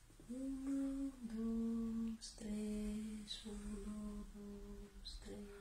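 A person humming a slow tune in long held notes, the first note a little higher and the rest level and lower, with short breaths between them.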